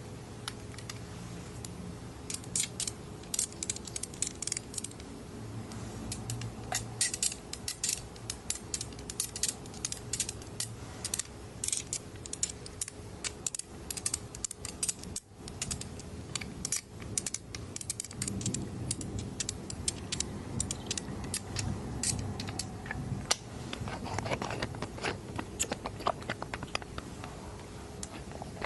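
Eyedropper handled close to the microphone: a dense, irregular run of small clicks and squeaks from the dropper being squeezed and worked, over soft low handling noise.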